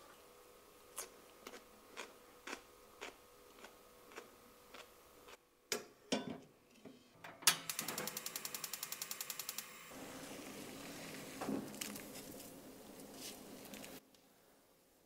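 Gas stove knob turned and the igniter clicking rapidly for about two seconds, then the burner running with a steady hiss for about four seconds. Before that comes a run of light ticks about twice a second, then a few knocks.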